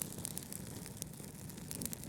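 Wood fire crackling, with frequent small snaps and pops over a steady low brown-noise rumble.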